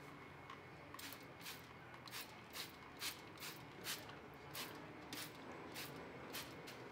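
Hand trigger spray bottle squirting wheel cleaner onto a car wheel: a quick run of short hisses, about two a second, starting about a second in.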